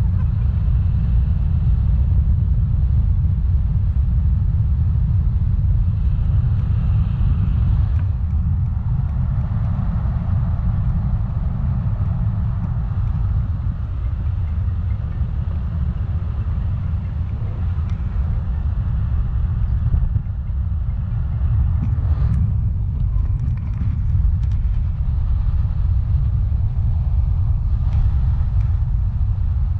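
Wind rushing over the microphone of an action camera held out from a paraglider in flight: a loud, steady, low rumble.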